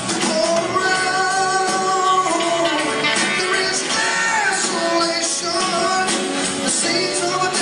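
Live band music with a lead vocal singing held notes.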